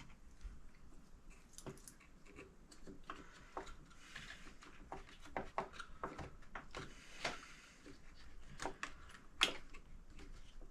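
Faint, irregular clicks and taps with brief rustling: small parts and tools being handled while a servo is fitted into an RC truck.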